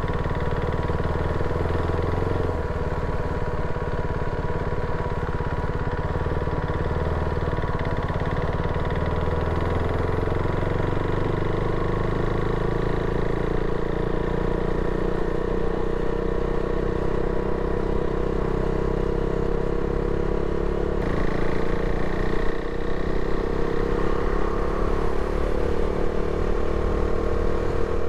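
Motorcycle engine running steadily while riding, getting a little louder about three quarters of the way through.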